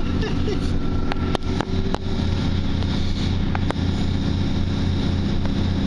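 Steady rumble and low hum of a diesel passenger train running along the line, heard from inside the carriage, with a few sharp clicks or knocks about a second in and again past the middle.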